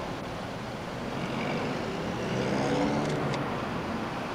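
A crane's engine running under load as it lifts a slung stone section of a memorial clear. The engine gets a little louder about two-thirds of the way through, and there are a couple of faint clicks.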